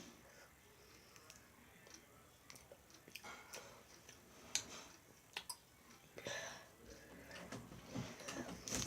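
Faint scattered clicks, one every second or so, with a few short soft rustling noises that come more often near the end.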